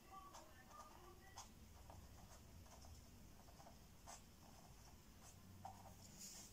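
Faint, scattered taps and scratches of a marker pen's tip on paper as a row of dots is drawn.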